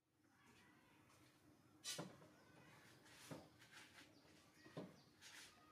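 Near silence: faint background with a few short, soft clicks, the loudest about two seconds in.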